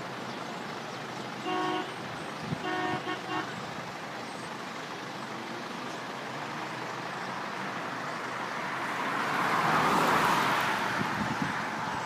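Car horn honking, one toot and then a few quick toots about a second later, over steady road-traffic noise. A rushing noise swells and fades near the end.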